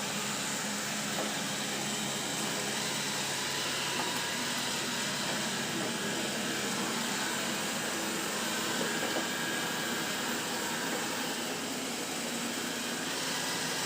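Robot vacuum cleaner running steadily, a constant motor whir with hiss.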